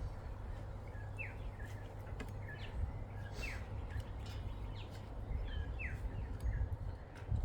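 Small birds chirping, with short falling chirps repeated again and again, over a steady low rumble and a few light clicks.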